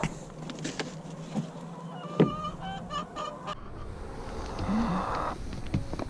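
Hens giving short squawking calls in the coop, mixed with knocks and clatter, the loudest a sharp knock about two seconds in, then a brief rustle.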